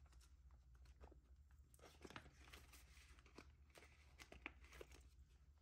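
Near silence with faint rustles and a few soft clicks of paper banknotes and a cash envelope being handled.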